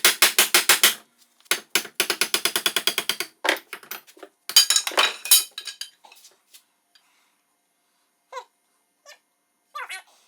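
Three quick runs of sharp strokes, about seven a second, from hand tool work on an axe handle, as the maul head is knocked off to trim the wood down. These are followed by a few scattered small clicks and short squeaks.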